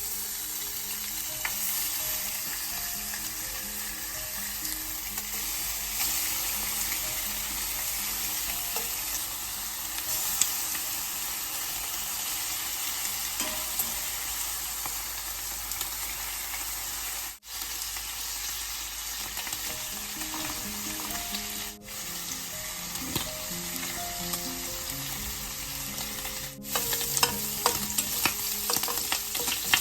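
Food sizzling as it fries in oil in a pan: a steady hiss that briefly cuts out three times, growing louder with popping crackles near the end. Soft background music underneath.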